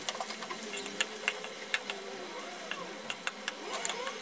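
Scallops searing in dill butter in a frying pan, the butter sizzling with many irregular sharp pops and spits.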